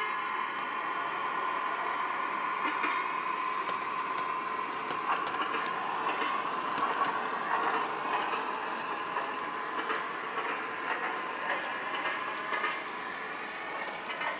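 Model subway train pulling out of a station: a steady motor hum with scattered light clicks of the wheels on the track, fading slightly near the end.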